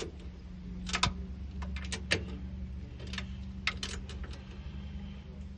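Irregular light clicks and knocks of hands working with tools and parts on a car door while a mirror is bolted on, over a steady low hum.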